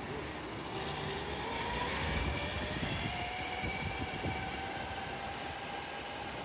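Castle Creations 2535 brushless motor on a 12S LiPo driving a large-scale electric RC monster truck, whining as the truck pulls away; the pitch rises over the first two seconds, then holds steady.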